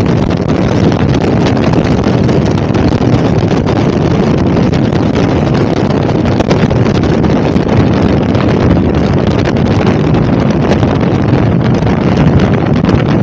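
KTM 1290 Super Adventure's V-twin engine running steadily at road speed, with heavy wind buffeting on the microphone.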